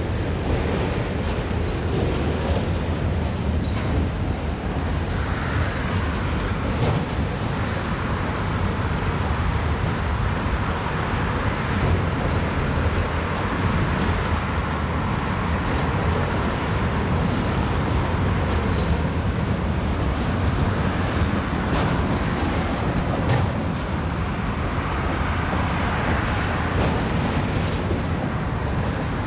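Freight trains rolling past on two tracks: a steady rumble of steel wheels on rail, with a few light clicks now and then.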